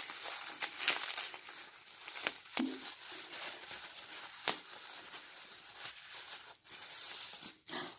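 Bubble wrap crinkling and rustling as hands pull it apart to unwrap a small plastic model horse, with scattered sharp crackles.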